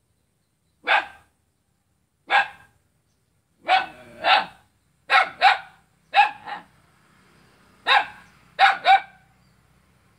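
Small white dog barking repeatedly: about eleven barks, some single and some in quick pairs, with short pauses between them.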